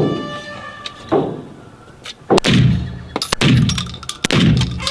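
Emperor Arms Cobra 12-gauge semi-automatic shotgun firing about five shots, roughly one a second, each blast ringing on in the hard-walled indoor range lane.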